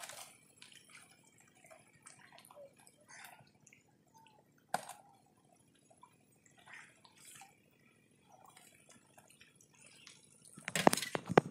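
Water dripping and splashing lightly as a bamboo fish trap and a plastic bowl are worked in shallow water, with scattered small clicks. Near the end, a quick run of loud, sharp knocks.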